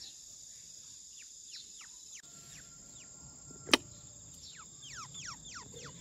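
Steady high chirring of crickets, with a small bird's short downward-sweeping chirps: a few scattered at first, then a quick run of them near the end. A single sharp click about three and a half seconds in.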